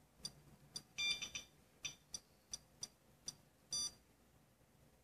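SOEKS Geiger counter clicking at irregular, random intervals, about a dozen short high-pitched clicks with a few quick doubles, each one a count from the radioactive source in a smoke detector held against it.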